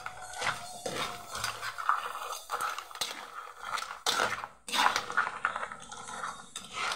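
A metal spoon scraping and clinking against a metal wok in irregular strokes as crab pieces are stirred and tossed.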